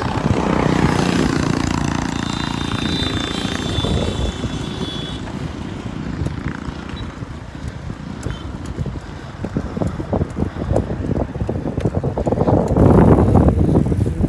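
Wind buffeting the microphone while riding a bicycle along a road, with road noise throughout. A passing car's engine hum is heard in the first few seconds. The buffeting grows louder near the end.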